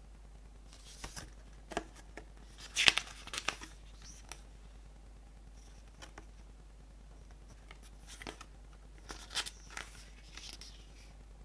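Hands handling a CD and its packaging: scattered clicks, taps and rustles, the loudest a short crinkling rustle about three seconds in, with another cluster of clicks and rustles about nine seconds in.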